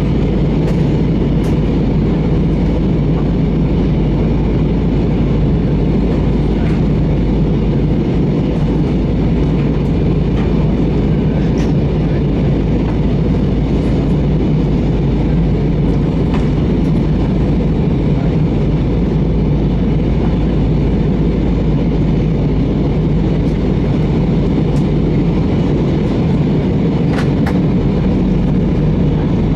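Steady cabin noise inside an Airbus A320 on its descent: the low, even rumble of the engines and the airflow over the fuselage, with a few faint clicks.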